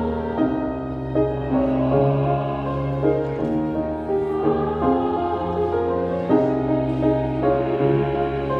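Slow background music of held, choir-like chords over a steady low bass, the chords changing every second or so.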